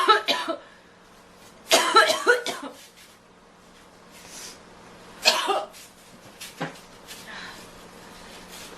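A girl coughing in three fits, each a quick run of harsh coughs, at the start, about two seconds in and about five seconds in, with faint breaths between them.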